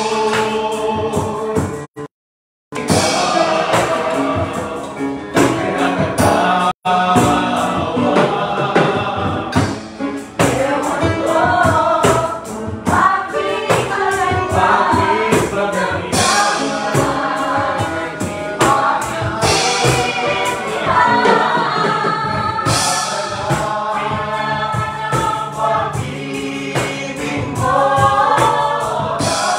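A group of restaurant cooks and waiters singing together over a steady beat. The sound cuts out for a moment about two seconds in.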